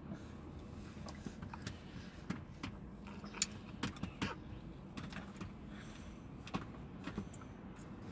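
Inside a car: a low steady engine and cabin hum with scattered light clicks and rattles, several sharper ones around the middle.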